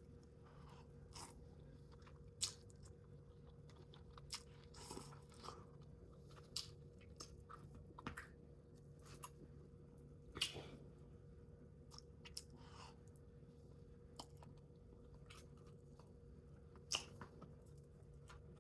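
Close-miked eating sounds: quiet chewing with scattered soft mouth clicks and smacks, a few louder ones now and then, over a faint steady hum.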